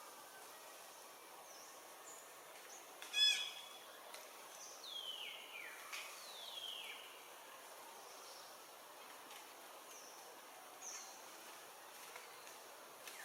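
Outdoor animal calls over a steady background hiss: one short, sharp, many-toned call about three seconds in, then two falling whistled calls, and a few faint high chirps.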